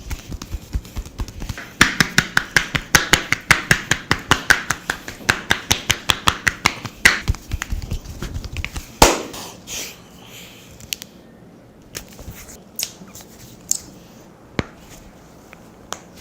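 Barber's hands working in a head-and-skin massage: a fast run of sharp slaps and skin-snapping pops, about five a second, then one louder crack about nine seconds in and a few scattered single pops.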